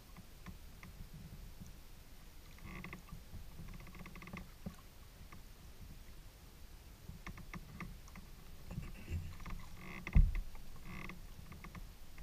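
Paddling a Delta 12.10 kayak on calm water: soft paddle splashes and drips in short spells, with low water and handling noise against the hull. One thump comes about ten seconds in.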